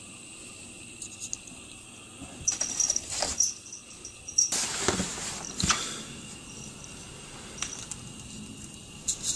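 A cat's paws crunching and scuffing in deep snow, in a few short clusters, over a faint steady high-pitched whine.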